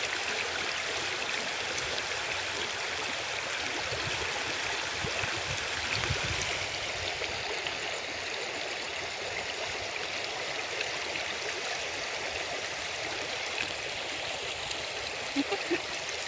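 River water flowing past a pebble bank: a steady rushing wash.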